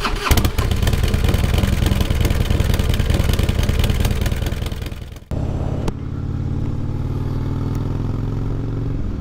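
A loud engine runs during the opening seconds, then fades away about five seconds in. After a sudden cut, a Harley-Davidson Heritage Softail's V-twin engine runs steadily as the motorcycle rides along at an even speed.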